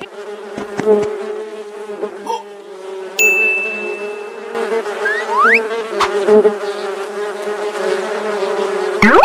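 Cartoon bee-swarm buzzing sound effect, a steady drone. A bright held ding comes about three seconds in, and a short rising whistle comes about five seconds in.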